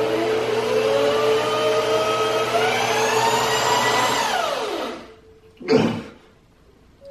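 Power drill driving a small water pump that sends beer up a tube, its motor whine climbing in pitch as it speeds up, then winding down and stopping about five seconds in. A short burst of noise follows about a second later.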